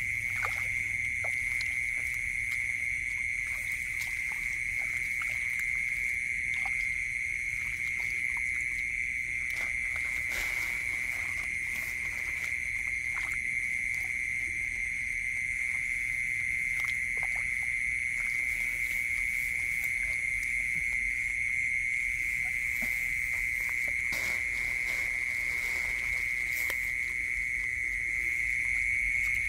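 Steady night chorus of calling animals in a rice field, one high-pitched note held without a break. Scattered light clicks and small splashes come from hands working in shallow muddy water.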